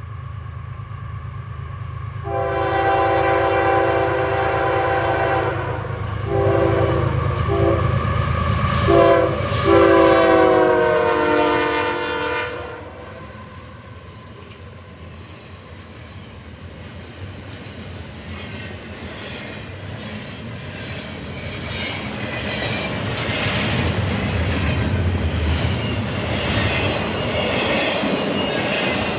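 CSX freight locomotive's Nathan K5HL five-chime air horn blowing a series of blasts: one long, a few short, then a long one whose pitch sags near its end, over the low rumble of the diesel. Then the rumble and rhythmic clatter of double-stack intermodal cars rolling past at speed, growing louder toward the end.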